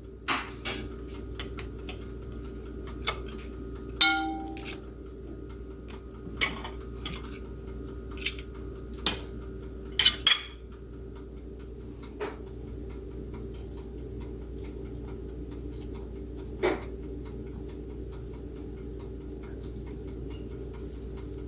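Dishes and utensils clattering and clinking now and then, a string of sharp knocks clustered in the first half and a couple more later, over a steady low hum.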